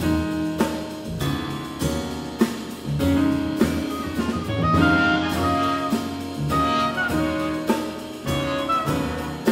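Small jazz band playing live: trumpet playing a melody of held notes over drum kit with cymbals, upright bass and piano.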